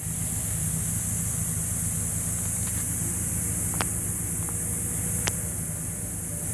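Steady low mechanical hum under a constant high-pitched hiss, with a few faint sharp clicks around the middle.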